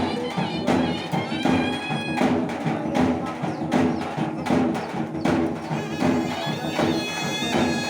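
Music with a reedy wind instrument playing a wavering melody over a steady drum beat, about one stroke every three-quarters of a second.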